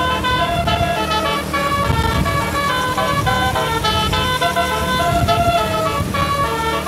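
A bus's multi-tone telolet horn plays a fast melody, several notes sounding together and changing every fraction of a second. Under it runs a steady low rumble from the vehicle.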